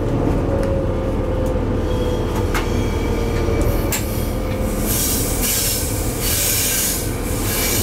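Eurosprinter class 120 electric locomotive running with a heavy freight train, heard from inside its cab: a steady rumble with a faint, slowly falling whine and a few clicks. From about five seconds in there are intermittent loud bursts of hissing.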